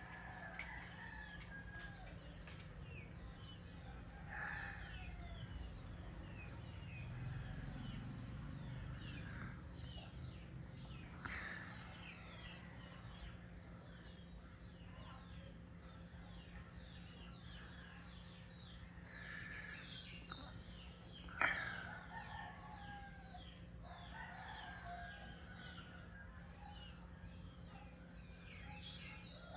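Roosters crowing again and again at a distance, over many small birds chirping steadily. One sharper, louder call comes about two-thirds of the way in. A steady high-pitched hum lies underneath.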